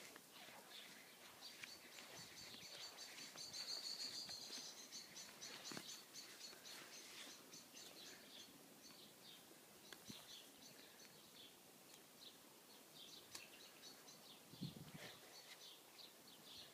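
Faint birdsong: a bird singing rapid, high chirping trills, loudest a few seconds in, then scattered chirps, over quiet outdoor background.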